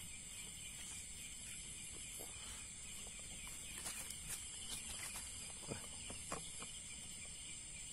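Steady high-pitched chirring of crickets and other night insects, several pitches at once, with a few faint rustles and knocks partway through.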